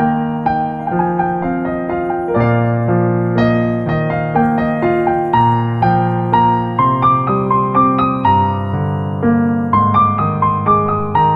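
Background music: a piano or electric piano playing a gentle, steady run of notes.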